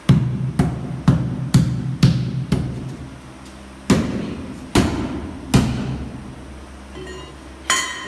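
Heavy blows from a hand tool striking the bead of a truck tire, about two a second at first, then three slower strikes, each dying away with a dull ring.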